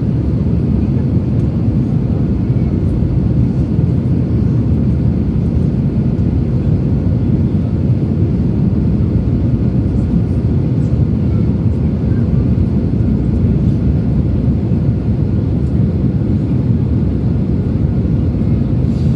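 Airbus A321 jet airliner noise: a steady, even low rumble of engines and airflow.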